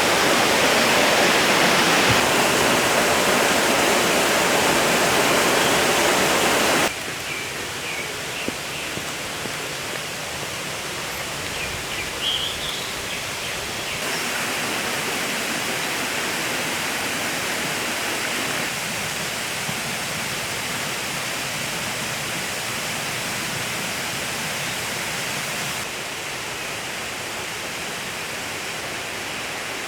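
Mountain stream rushing steadily, its flow swollen by the previous day's rain. The rush is loudest for the first seven seconds, then drops suddenly and stays lower.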